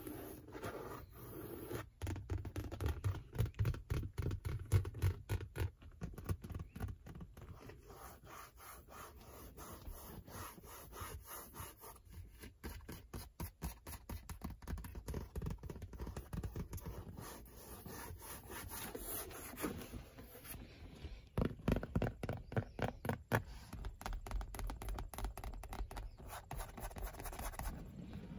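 Long fingernails scratching and tapping on a car's leather seat upholstery in quick, dense runs of strokes, louder in a couple of bursts. Near the end the nails move onto the leather headrest.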